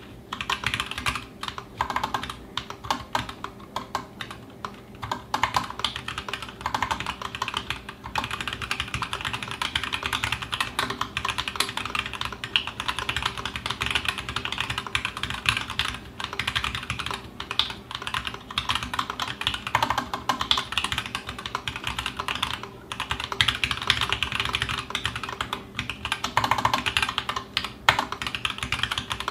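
TGR Alice mechanical keyboard with stock, unlubed Zealio v2 78g tactile switches and GMK keycaps, typed on quickly and continuously as a steady stream of key clacks, with short pauses now and then.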